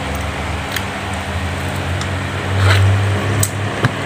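Steady low mechanical hum of a room appliance. A few short crunches and clicks come through as fried chicken is torn and chewed.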